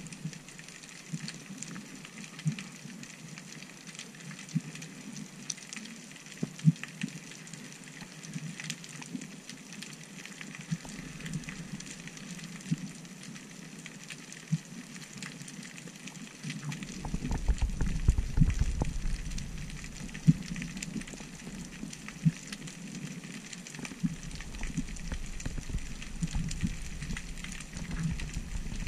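Underwater ambience picked up by a camera: a faint steady hiss with scattered sharp clicks and crackles. About seventeen seconds in, a low rumble of water movement comes in for several seconds, then fades.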